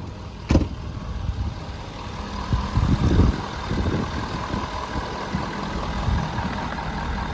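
Ford 6.7-litre Power Stroke V8 diesel running at idle, with a sharp knock about half a second in and a few louder low surges around three seconds.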